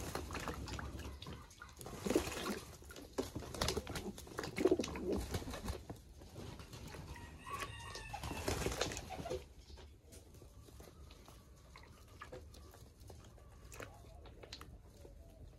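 Pigeons bathing, with wings beating and water splashing, for about nine and a half seconds, then much quieter with an occasional flutter.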